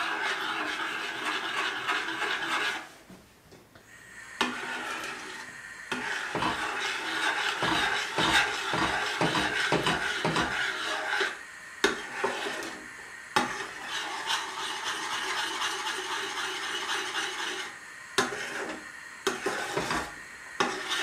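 Metal spoon stirring and scraping around a stainless steel pot of milk pudding (budyń) as the starch-thickened milk sets, with sharp clinks of the spoon against the pot now and then. The stirring stops briefly about three seconds in.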